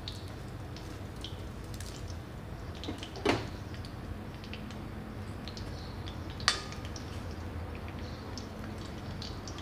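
Mustard seeds and dried red chillies frying in hot coconut oil in an aluminium kadai, with faint scattered crackles from the popping seeds. A soft knock about three seconds in and a sharp metal clink of a ladle against the pan about six and a half seconds in.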